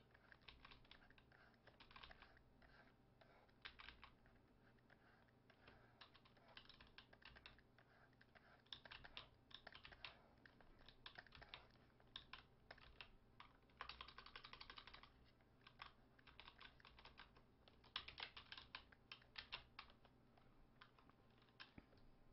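Faint, irregular clicking of computer keyboard keys in short clusters, with a quick rapid run of presses about two-thirds of the way through.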